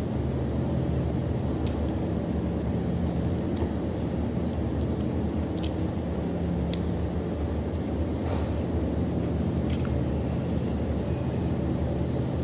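Steady low machine hum with several fixed low pitches, unchanging throughout, with a few faint short clicks scattered over it.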